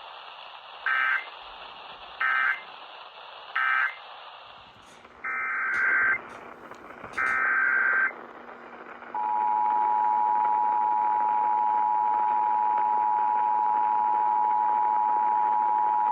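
Emergency Alert System tones over a radio's hiss: three short screechy SAME data bursts of the end-of-message code, then two longer SAME header bursts. About nine seconds in, the steady two-tone EAS attention signal starts and holds at one level.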